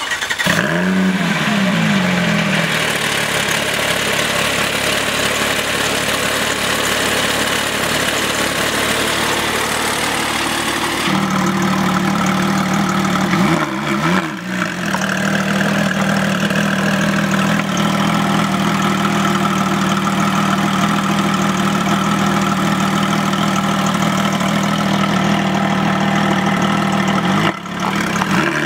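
Porsche 997.2 GT3 RS's 3.8-litre flat-six just after start-up: the revs flare and swing for a couple of seconds, then settle into a steady idle.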